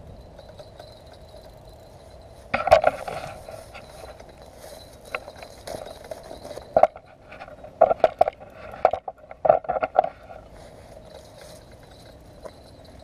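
Handling noise close to the microphone: an irregular run of knocks, clinks and scrapes as the angler handles his fishing rod and reel, loudest about three seconds in and again in a quick cluster near the end.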